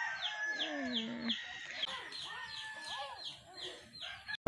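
Chickens: a steady run of short, high, falling peeps, about three a second, with a few low clucks underneath.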